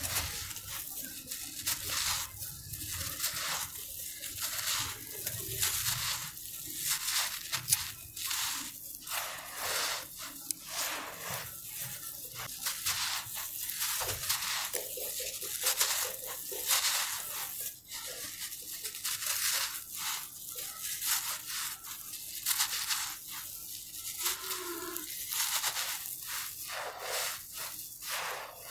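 Hands digging into dry, gravelly dirt and crushing clumps of it, with gritty crunching and loose grains falling, in quick irregular strokes.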